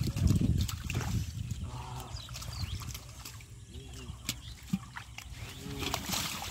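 Shallow muddy water splashing and sloshing as hands grab a fish, loudest in the first second, then scattered smaller splashes and knocks. Over it, farm animals and birds call in the background a few times.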